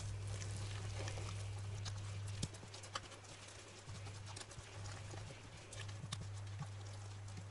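Spatula stirring thick, melting curd in a nonstick pan, with scattered light taps and scrapes against the pan. Under it runs a low steady hum that weakens a few times and stops near the end.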